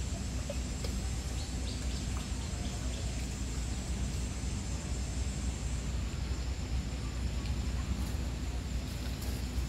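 Steady outdoor background noise with a low rumble and a few faint, high bird chirps.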